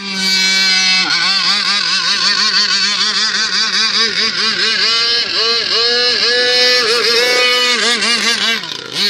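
40 cc two-stroke petrol engine of an RC speedboat running at high revs. Its note holds steady for about a second, then swoops up and down about three times a second as the boat runs and circles on the water.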